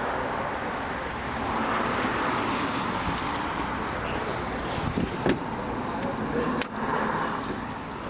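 Steady motor-vehicle noise with a few short knocks about five seconds in and again later.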